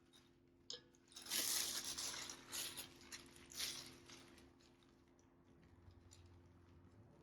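Plastic piping bag of cake batter being handled: a click, then a few bursts of rustling and squishing as the bag is filled and squeezed.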